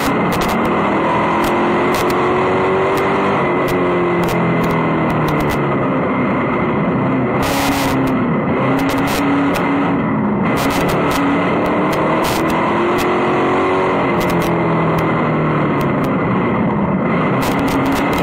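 Vintage dirt-track race car's engine heard from inside the cockpit at racing speed, its pitch rising and falling every few seconds as the driver gets on and off the throttle around the oval. Frequent sharp clicks and knocks sound over the engine throughout.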